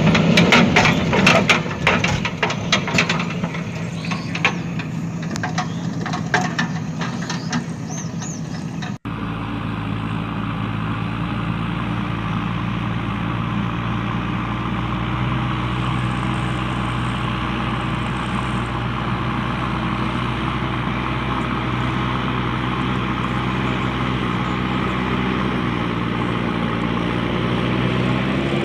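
Small electric motor and plastic gears of a battery-powered toy JCB loader running. For the first nine seconds there is dense clicking and rattling, then it changes abruptly to a steady, even hum.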